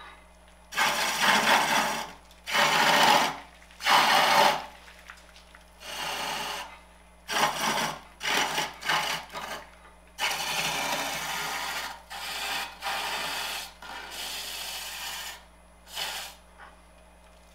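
Wood lathe turning a branch while a wide flat chisel peels off big shavings, in about a dozen separate bursts of cutting noise. The passes are loudest in the first few seconds, with a faint steady hum between them.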